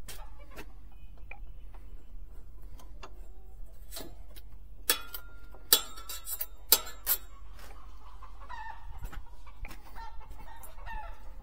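Steel band saw blade for a portable band sawmill clicking and clacking as it is handled and flexed, with four sharp clacks about five to seven seconds in. Steady low wind rumble on the microphone.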